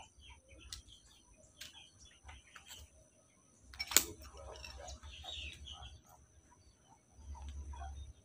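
Pruning shears snipping a grapevine cane once, a single sharp click about four seconds in, among faint small clicks and bird chirps, with patches of low rumble.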